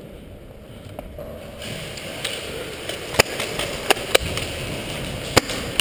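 About five sharp single cracks of airsoft gunfire, spread over the last three seconds. They sit over the steady rustle of someone moving.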